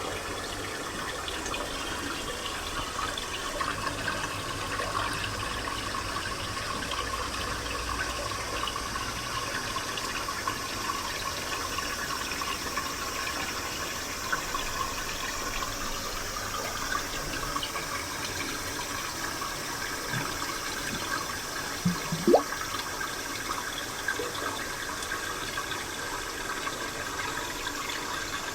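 Spring water flowing and splashing steadily, with one brief rising sound about three-quarters of the way through.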